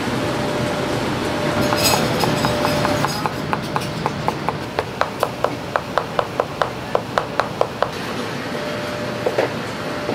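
A Chinese cleaver knocking on a cutting board in a quick, even run of straight up-and-down chopping strokes, about four a second, as it cuts through soft food. It starts about one and a half seconds in and stops near the end, over a steady background hum.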